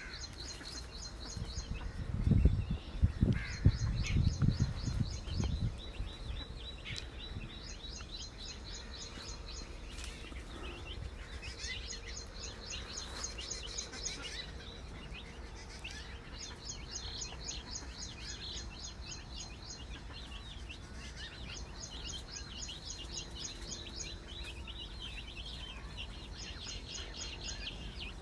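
Birds chirping in repeated short trains of quick high notes, with scattered softer peeps between them. Loud low rumbling thumps come about two to six seconds in.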